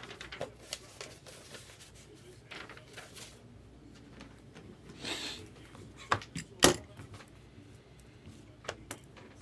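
Trading card boxes and packs being handled and opened on a table: scattered sharp clicks and taps, with a brief rustle of packaging about halfway through.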